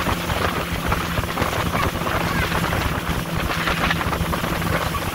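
Motorboat engine running steadily with the boat under way, a constant low hum under wind noise buffeting the microphone.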